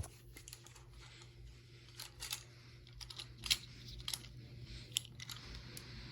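Faint, irregular light clicks and taps of small parts being handled, a few scattered seconds apart, over a low steady hum.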